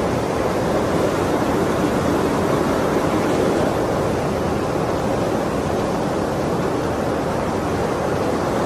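Steady rush of a swollen, flooding river.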